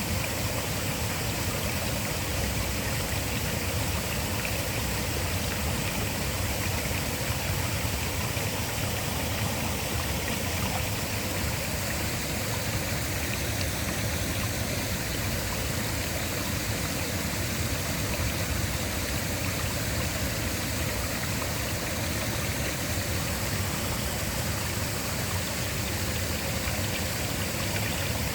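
A waterfall: the steady, unbroken rush of falling water.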